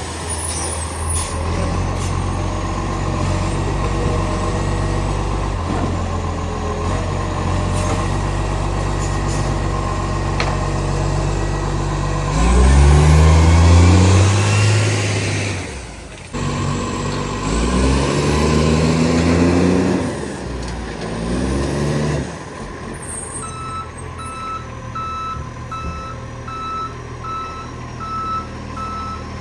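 Garbage truck's diesel engine with an exhaust leak, idling steadily, then revving up hard twice near the middle and settling back. Near the end its reversing alarm beeps, about one and a half beeps a second.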